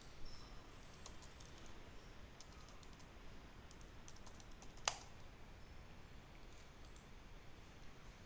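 Faint computer keyboard typing: scattered key clicks, with one sharper, louder click about five seconds in.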